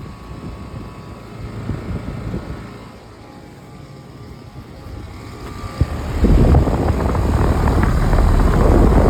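Outdoor air-conditioner condenser units running with a steady fan hum. A sharp click about six seconds in, then a much louder rush of fan air for about three seconds before it drops back.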